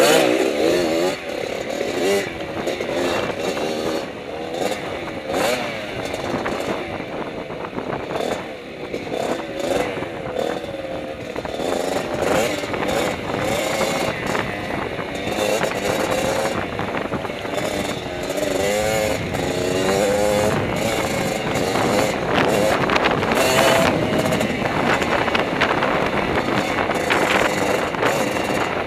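Dirt bike engine riding hard, its pitch rising and falling again and again with throttle and gear changes, over knocks and rattles from the bike.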